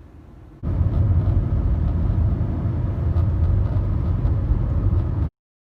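Car on the move: loud, steady low road and wind rumble. It starts abruptly about half a second in and cuts off suddenly near the end.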